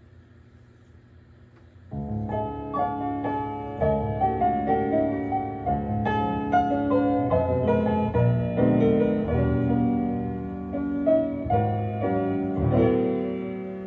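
Solo piano music played back from reel-to-reel tape on an Otari MX-5050B2 deck. A faint steady hiss comes first, then the piano comes in abruptly about two seconds in.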